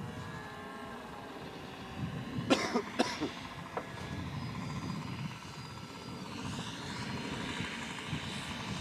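Radio-controlled model airplane's engine and propeller heard from the ground, the pitch falling over the first couple of seconds as it is throttled back for a landing approach, then running steadily at low throttle. Two or three sharp knocks near the mic about two and a half seconds in are the loudest sounds.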